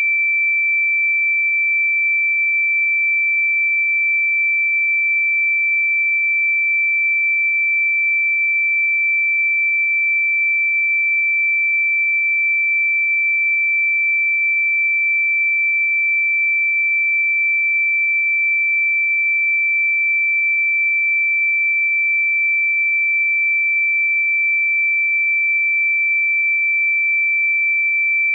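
A single pure sine tone, high-pitched and held perfectly steady at one pitch, with no music or other sound around it.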